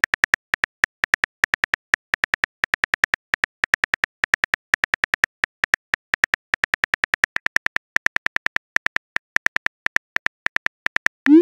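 Phone keyboard typing sound effect: rapid, unevenly spaced key clicks as a text message is typed out. Near the end comes a short rising whoosh as the message is sent.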